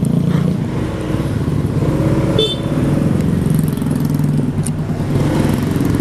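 Motorcycle engine running under way, heard from the bike itself, with a brief horn toot about two and a half seconds in.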